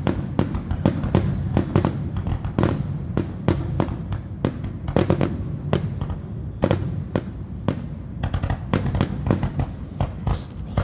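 Fireworks going off in quick succession: many sharp, irregular bangs and crackles, several a second, over a continuous low rumble.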